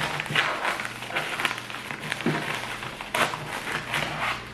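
Packaging crinkling and rustling as it is handled, in quick irregular crackles, over a faint steady low hum.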